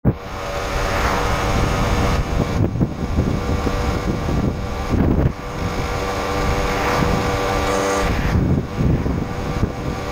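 Old two-stroke moped engine running under way, a steady buzzing note that dips briefly a couple of times.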